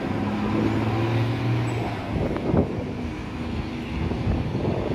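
Low rumble of a distant Boeing 737 jet airliner on approach, with wind gusting on the microphone. A steady low hum is strong for the first two seconds or so, then fades.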